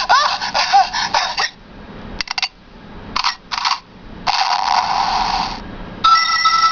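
Handheld toy sound-effects machine playing its recorded effects through a small tinny speaker, one after another. A canned laughter effect ends about a second and a half in, followed by short clicks, a couple of brief bursts and a longer noisy burst. Near the end a steady electronic tone begins.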